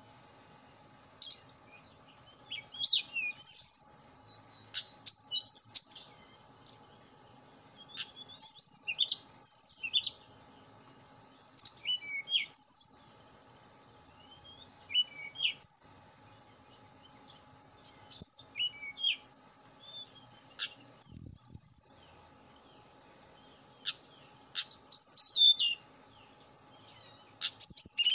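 Tledekan gunung flycatcher singing in short bursts of high chirps and sweet whistled glides, a phrase every second or two with brief pauses between. There is a soft low thump about three-quarters of the way through.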